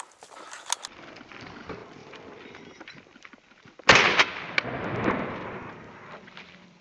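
A single loud shotgun shot about four seconds in, followed by a long rolling echo that fades out over about two seconds. Before it there is only faint rustling.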